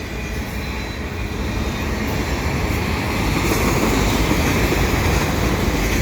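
Freight train of auto rack cars rolling past: a steady rumble and rattle of steel wheels on rail that grows a little louder a couple of seconds in.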